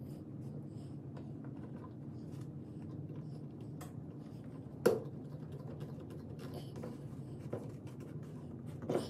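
Scattered light clicks and taps over a steady low hum, with one sharper knock about five seconds in and another near the end.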